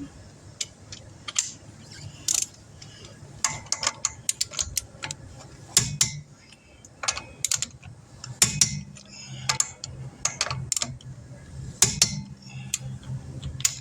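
Torque wrench tightening a car wheel's lug nuts: clusters of sharp ratcheting clicks with short pauses between them. A low steady hum runs underneath.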